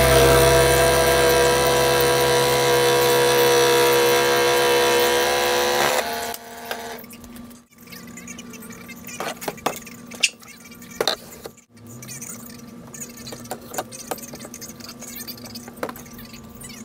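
Background music that stops abruptly about six seconds in. Then low room sound with a faint steady hum and scattered light clicks and knocks as wooden cut-out pieces and tools are handled on a table.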